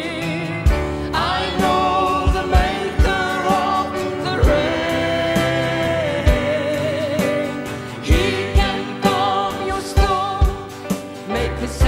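Live worship band playing a slow gospel song: a woman and men singing the lyrics in English with vibrato, over keyboard, acoustic guitar and an electronic drum kit keeping a steady beat.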